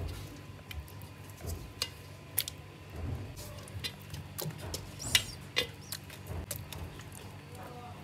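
A hand shifting potato chunks among marinated chicken pieces in a pot: scattered small clicks and soft knocks, the loudest about five seconds in, over a faint steady low hum.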